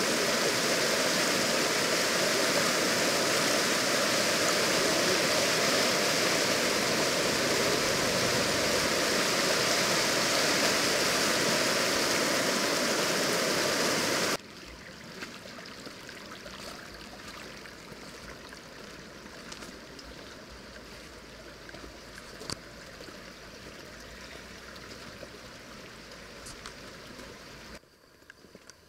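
A fast, shallow river rushing over rocks and boulders, a loud, steady hiss of water. About halfway through it cuts off abruptly to a much quieter scene of footsteps on stones and gravel, scattered short crunches and ticks.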